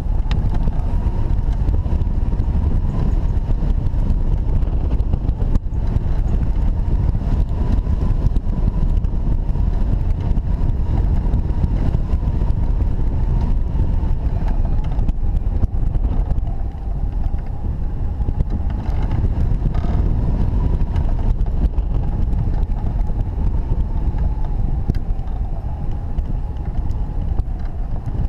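Airflow rushing over the microphone of a camera mounted on a hang glider's wing in flight: a loud, steady low rumble of wind, with a faint high whistle held throughout that wavers slightly in pitch.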